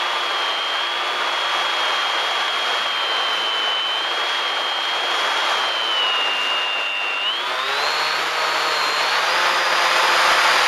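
Bixler RC plane's electric motor and propeller whining steadily as heard from the onboard camera, with wind rushing over the airframe. About seven seconds in, the whine dips a little and then rises in pitch as the motor speeds up.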